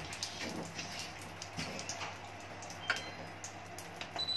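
Faint small clicks and drips with a steady low hum, then a short high beep near the end as a button is pressed on the control panel of a Trevi FW-5050 alkaline water ionizer.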